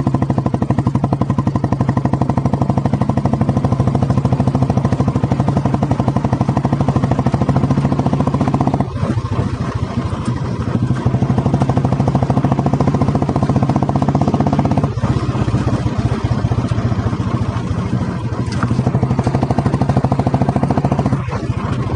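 Single-cylinder engine of a 1985 Royal Enfield Bullet 350 running through a loud exhaust, a steady, even thump of firing pulses. The beat briefly drops three times, as when the throttle is eased.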